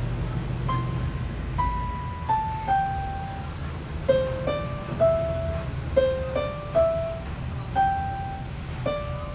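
Background instrumental music: a slow melody of single struck or plucked notes, about one or two a second, over a low steady bass.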